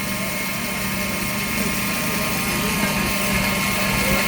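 Belt grinder running steadily as a knife blade is ground against it, with a slight rise in the higher grinding noise from about three seconds in.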